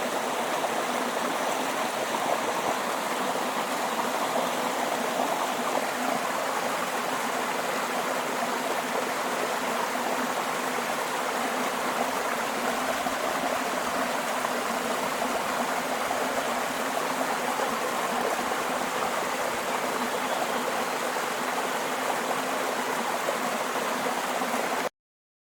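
Waterfall: water falling and rushing steadily, a constant even wash of noise that cuts off suddenly near the end.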